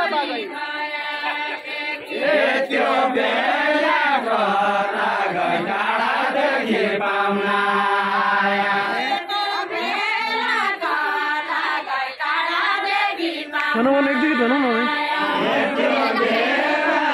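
Deuda, the Far-Western Nepali folk song, sung by a group of voices in long, gliding, wavering phrases with brief breaks between lines.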